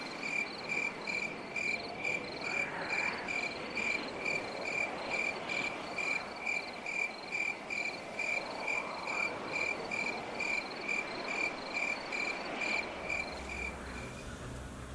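A cricket chirping steadily, about two and a half short chirps a second, over a soft background hiss of night ambience. The chirping stops near the end.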